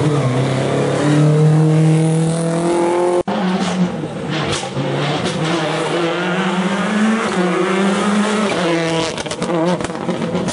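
Rally car engines running hard, rising in pitch as they accelerate. The sound breaks off abruptly about three seconds in and another engine takes over, climbing and dropping through the gears.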